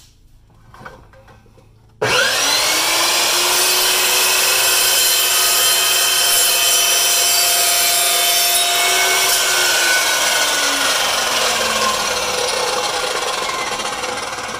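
An Evolution EVOSAW380 dry-cut metal chop saw starts suddenly about two seconds in, runs up to speed and saws through a piece of aluminium angle. The motor's pitch falls and the noise fades slowly as it winds down.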